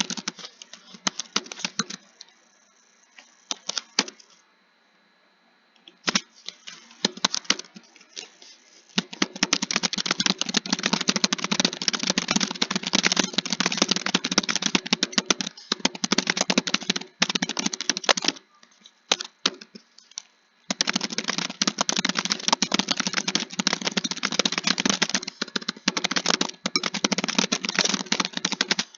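Typing on a computer keyboard: scattered keystrokes at first, then long runs of fast, steady clicking from about a third of the way in, broken by a pause of a couple of seconds about two-thirds through.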